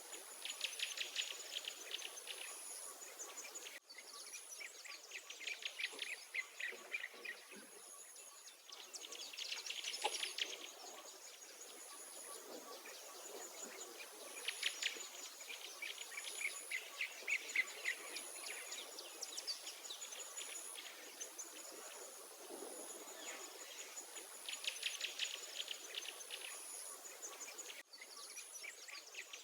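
Songbirds singing in rapid trilled phrases that repeat every few seconds, over a high, thin insect call pulsing on and off.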